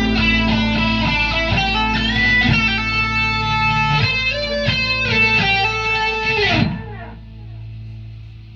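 Electric guitar music over a steady low drone, which ends about seven seconds in with the notes sliding down in pitch. Only a faint low hum is left after that.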